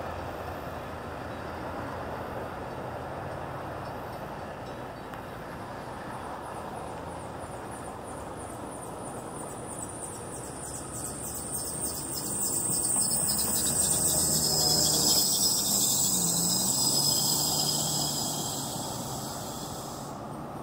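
Road traffic at a railroad grade crossing: cars and a pickup driving over the tracks. One vehicle passes louder and closer partway through, its tyre hiss building, peaking and fading away.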